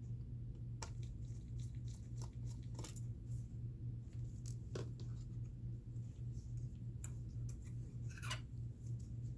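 Scattered light clicks and small scrapes of hands handling laptop parts and screws, with a brief scraping rasp near the end, over a steady low hum.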